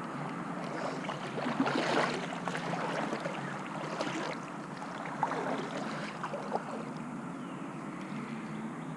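River water running steadily, with a louder stretch of splashing about two seconds in and a few scattered knocks.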